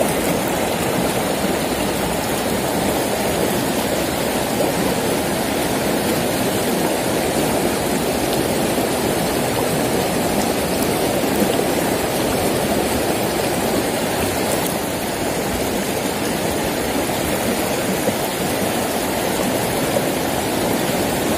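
Shallow rocky river running steadily over stones and a small riffle, an even rushing of water.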